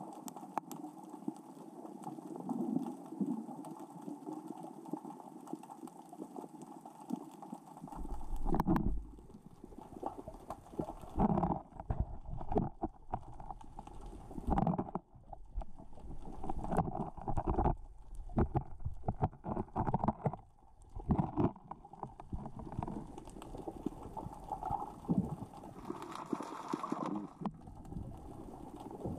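Underwater sound through a GoPro housing: small rocks rolling and clattering across the sea floor as the current and tide move them. A steady low rush at first, then from about eight seconds in a run of louder, uneven knocks and surges.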